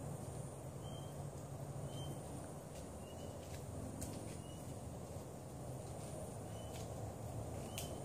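Garden ambience: a bird giving short chirps about once a second over a steady high insect whine, with a few clicks.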